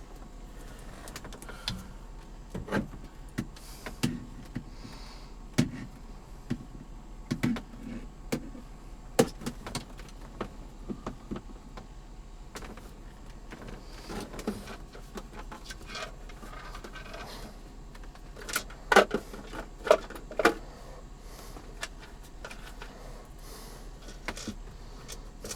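Scattered clicks and knocks of plastic car-console trim parts and loose screws being handled and set down, with a louder cluster of sharp clacks about nineteen seconds in.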